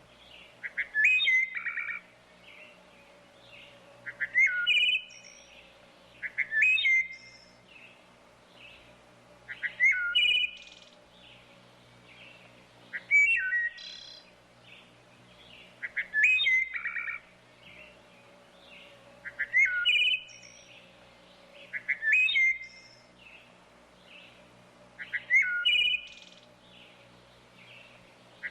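Wood thrush singing: a short fluty phrase ending in a higher buzzy trill, repeated about every three seconds, nine times.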